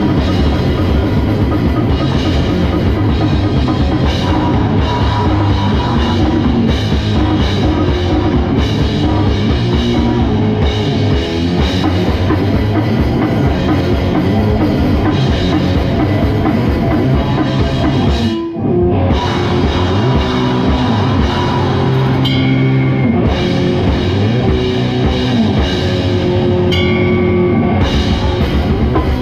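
Goregrind band playing live: loud distorted guitar, bass and fast drum kit. The band breaks off briefly about two-thirds of the way through, then resumes.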